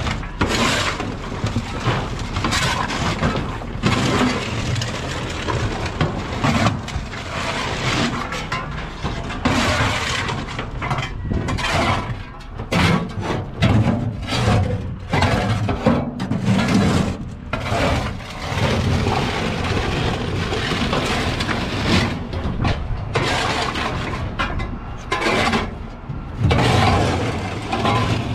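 Metal shovels scraping across a steel truck bed and scooping split coconut halves, with the hard shells clattering and knocking together irregularly.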